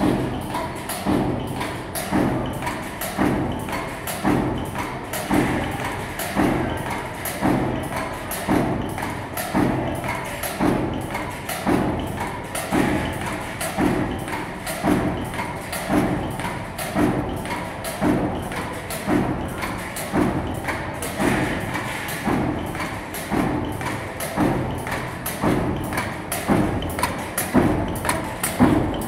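Ameet mechanical flywheel power press running continuously, blanking flat washers out of a strip fed from a de-coiler: a thump at every stroke, a little more than once a second, in a steady rhythm.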